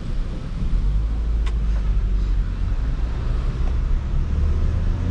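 Inside the cabin of a moving Ford New Fiesta with its 1.6 petrol engine: a steady low rumble of engine and road noise, with air coming through an open side window. A single light click about a second and a half in.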